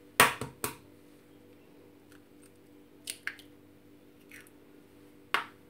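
A small ceramic dish knocked down onto a wooden countertop with a few sharp clicks, then an egg cracked against it and the shell pulled apart with two short clicks, and another sharp tap near the end. A steady low hum runs underneath.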